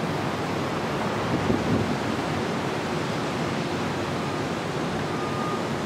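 Steady rushing noise of wind and ocean surf.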